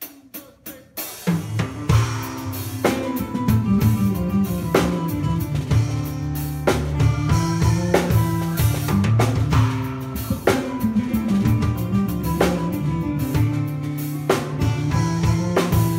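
A drum kit and an electric bass playing a groove together: a few sharp clicks, then about a second in the full groove comes in, with bass notes under regular kick, snare and cymbal hits.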